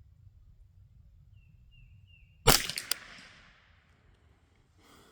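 A single shot from a CZ 512 semi-automatic .22 LR rifle about two and a half seconds in: one sharp crack with a short echoing tail, followed by a couple of quick, softer clicks.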